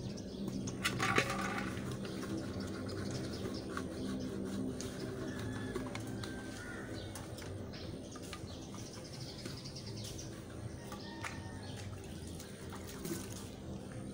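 Dishes being washed by hand in metal basins: water poured and splashed from a plastic jug, with the clink and knock of metal pans, loudest about a second in. Birds call faintly now and then.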